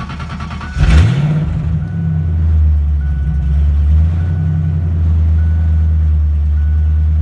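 1988 Ford Mustang's fuel-injected V8 being cranked on the starter, catching about a second in with a quick rev, then dropping to an idle that wavers in level for a few seconds before settling. The owner says it idles like garbage and suspects a vacuum leak. A warning chime beeps about once a second.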